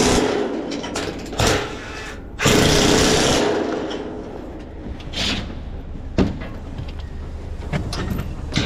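Makita cordless drill running in several short bursts as it works into a galvanised steel profile, the longest burst lasting about a second from two and a half seconds in, with a few sharp metal knocks between them.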